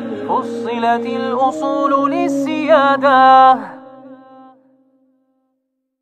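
A solo voice sings a slow, ornamented melodic line of an Arabic devotional chant over a steady low hummed drone. Both stop about two-thirds of the way through and fade out to silence.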